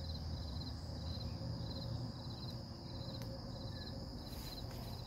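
Crickets chirping: short pulsed chirps repeating about twice a second over a steady high whine, with a low rumble underneath.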